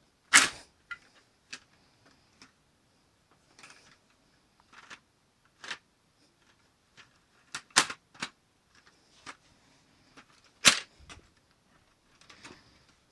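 Plastic clicks and snaps from a working Lego pump-action shotgun's mechanism: three loud sharp snaps, one about a second in, a doubled one past halfway and one near the end, with lighter clicks scattered between.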